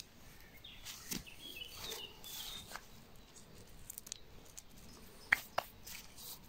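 Faint rustling of hands pressing synthetic padding and shifting slate gravel around a rose stem, with a few small bird chirps. Two sharp clicks come a little past five seconds in.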